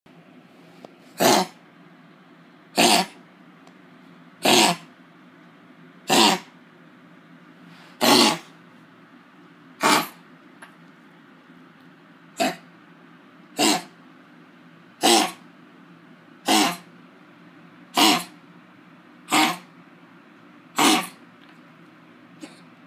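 Dog with kennel cough coughing: thirteen short coughs in a steady series, about one every second and a half.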